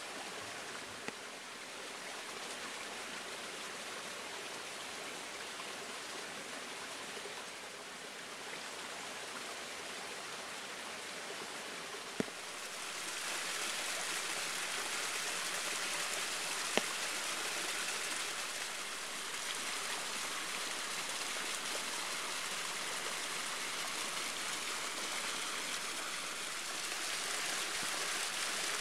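Waterfall's water rushing and splashing in a steady hiss, growing louder about halfway through, with a few brief faint clicks.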